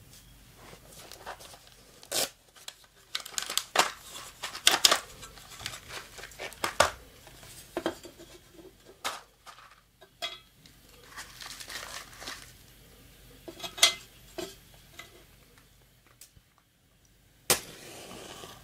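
An Esbit folding steel pocket stove being unpacked and set up on a wooden table: fabric rustling and a run of light metal clicks and clatters. Near the end a match is struck with one sharp scrape and flares with a brief hiss.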